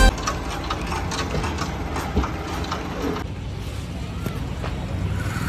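A vehicle engine running with a steady low rumble, with faint voices.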